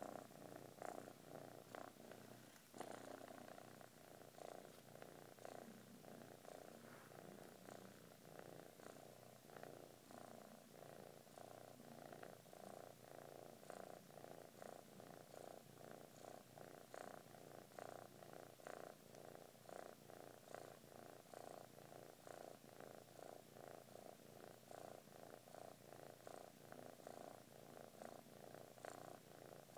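A ginger-and-white kitten purring quietly and steadily while it sleeps, the purr pulsing evenly with each breath in and out.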